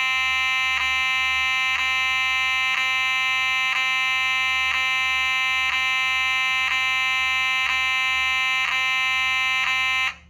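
A Simplex 2901-9838 fire alarm horn on a 2903-9101 strobe sounding one steady, buzzing horn tone with a brief tick about once a second. It cuts off abruptly near the end.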